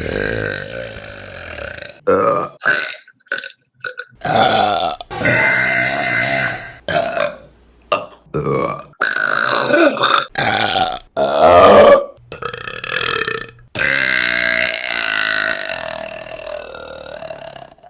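Women burping, a string of about a dozen separate burps cut one after another, most short, the loudest about eleven seconds in, and one drawn out for several seconds near the end.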